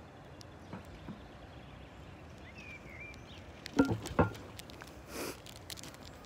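Quiet outdoor ambience with a short bird chirp, then two sharp knocks close together a little past the middle, followed by a brief hiss.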